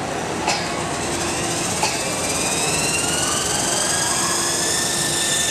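Electric motors of a small coaxial RC model helicopter spinning up: a thin whine that rises in pitch from about halfway through and then holds steady, over a steady background din. Two short clicks in the first two seconds.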